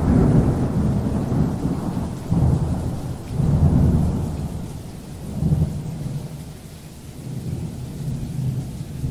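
Rolling thunder rumbling deep and long, swelling several times and dying away toward the end, with rain falling steadily.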